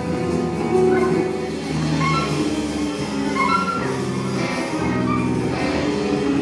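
Live band playing an instrumental passage, with electric guitars over sustained chords and short melodic lines.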